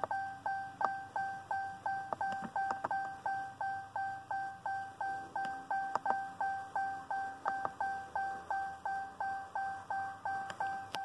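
The Ram 1500's instrument-cluster warning chime ringing over and over, about three dings a second, each a single pitched tone that fades quickly. A few sharp clicks fall among the dings.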